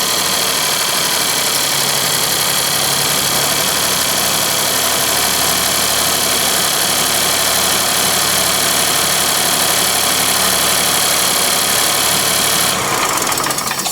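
Chevy Trax 1.2 L turbo three-cylinder engine running steadily just after start-up, with coolant leaking into its cylinders. It cuts off about a second before the end.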